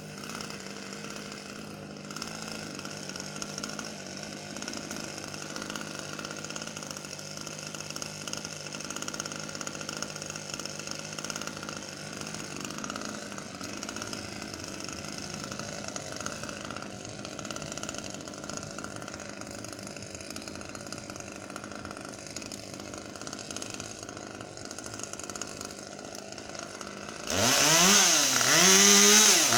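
Husqvarna T540XP two-stroke top-handle chainsaw running steadily at a low throttle, then revved hard about 27 seconds in, its pitch rising and falling several times.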